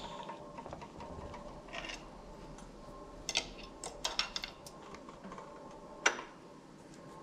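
Scattered metallic clicks and clanks of a wrench as the bare 4.5 L Cummins diesel's crankshaft is turned over by hand to bring a piston to the top, with one sharp clack about six seconds in.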